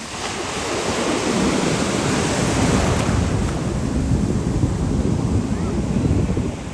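Ocean surf washing and breaking, with wind buffeting the microphone. The rush swells over the first couple of seconds, holds, then drops off near the end.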